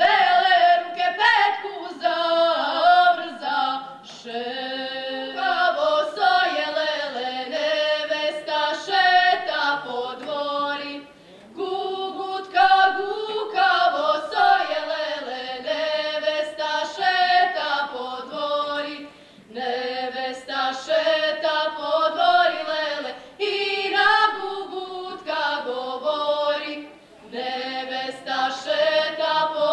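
A group of voices singing a Serbo-Croatian folk song a cappella, in long held phrases with short breaks between them.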